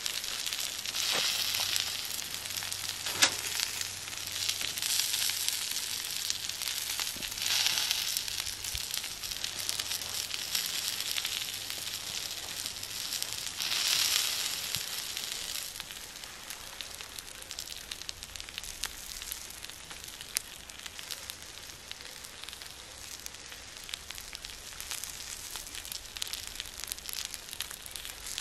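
Vegetable kebabs and bread sizzling on a cast-iron griddle and grill grate over a wood fire, a steady hiss that swells a few times, with occasional sharp pops, the loudest about three seconds in.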